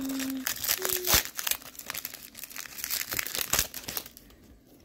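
Plastic wrapper of a 2018 Topps Gallery baseball card pack crinkling and tearing as it is opened by hand, a quick run of rustles that fades out about four seconds in.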